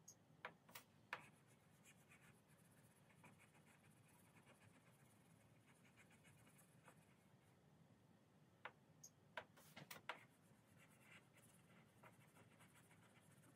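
Faint tapping and light scratching of a stylus drawing on the glass touchscreen of a Samsung Flip 2 digital flipchart, with a few sharper clicks about a second in and again around nine to ten seconds in.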